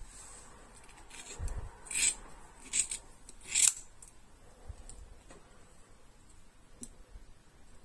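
Steel scissors snipping through a Barbie doll's synthetic blond hair: about four crisp snips in the first four seconds, the last the loudest, then a couple of fainter ones.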